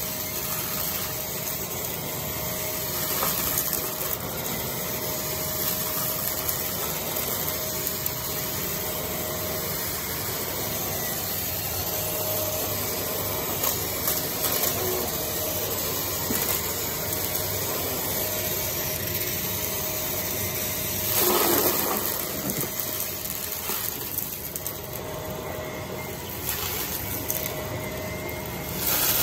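Vacuum cleaner running steadily as it sucks up a mix of debris, its motor noise covering most of the pickup. Louder surges about two-thirds of the way through and again near the end.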